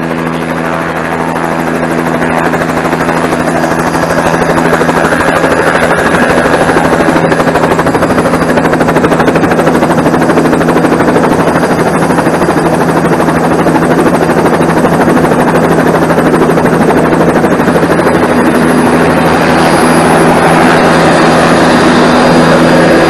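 Single-engine turbine helicopter idling on the pad with its rotor turning, heard at close range: a loud, steady turbine and rotor noise with a low engine hum under it, growing louder over the first few seconds. Rotor downwash buffets the microphone.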